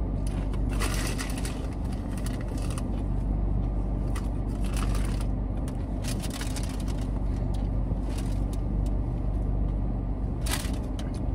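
A Miss Vickie's potato chip bag rustling and chips crunching in several short spells, over the steady low hum of the car's engine running.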